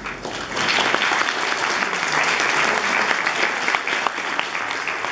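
Audience in a hall applauding, a dense clapping of many hands. It swells about half a second in and eases slightly near the end.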